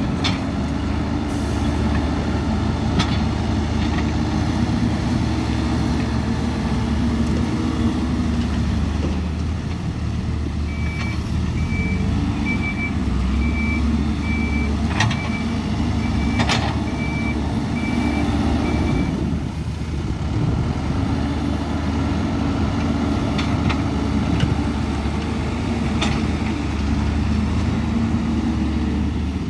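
Hidromek 102S backhoe loader's diesel engine running at work, its pitch rising and falling with the load, with a reversing alarm beeping for about eight seconds in the middle and a few sharp knocks.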